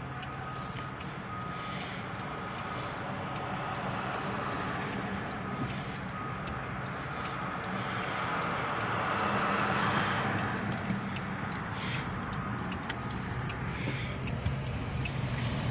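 A vehicle's reversing alarm beeping again and again at one pitch, dying away about halfway through, over the steady hum and road noise of a car heard from inside its cabin.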